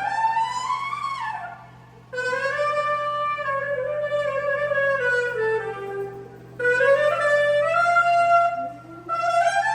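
A wind instrument played through a PA during a sound check: a rising phrase that drops off, a long held note that sags downward, then more rising phrases with pauses between them, over a steady low mains hum.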